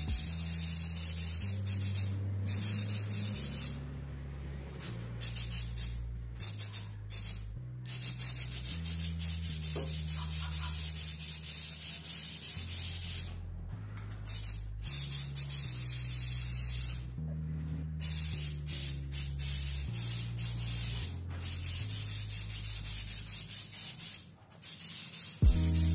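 Aerosol can of Rust-Oleum Pro Grade truck bed coating spraying, a hiss that stops and starts in repeated passes, over background music with a bass line.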